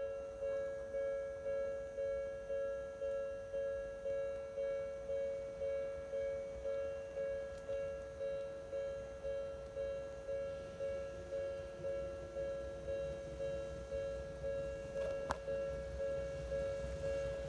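Japanese level-crossing warning bell ringing: an electronic two-tone ding repeating steadily at about two strikes a second, each strike fading away. It starts right at the beginning, signalling that a train is approaching and the crossing is closing.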